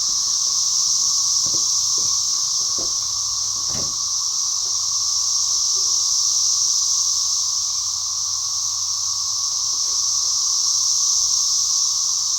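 Cicadas singing in chorus: a loud, steady, high-pitched buzz with no break, with a few faint knocks in the first few seconds.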